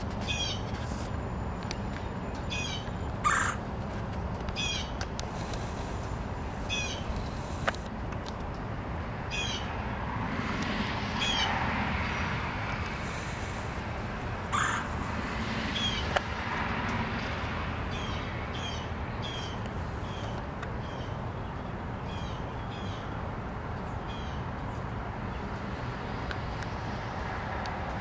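Male red-bellied woodpecker calling over and over, one short call every second or so, coming quicker in the second half.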